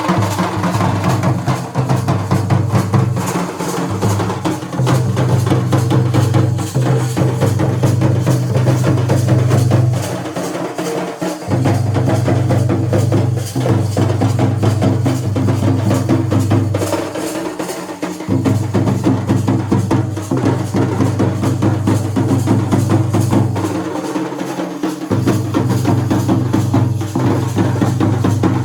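Kurum dhol (nagada) drums being played in fast, continuous rolling strokes. A deep steady low sound runs under the strokes and drops out briefly about every six to seven seconds.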